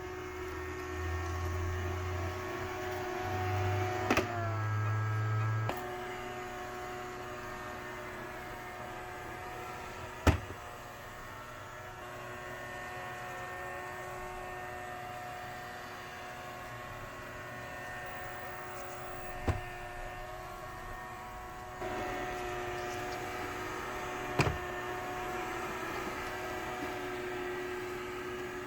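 Sterilizing robot vacuum cleaner running with a steady motor whine, with a few sharp knocks along the way.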